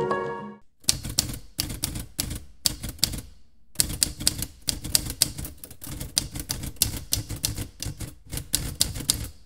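Typewriter keys clacking in quick, uneven runs of keystrokes, broken by a few brief pauses. Soft music dies away in the first half-second.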